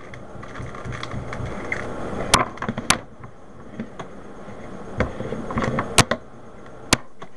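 An older-model plastic Rubik's Cube being handled and its layers twisted, with rustling and several sharp plastic clicks spread through.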